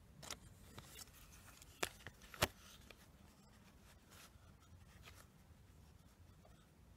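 Plastic cassette tapes and their paper inserts handled by hand: a few sharp clicks and taps, the loudest about two and a half seconds in, with faint rustling between.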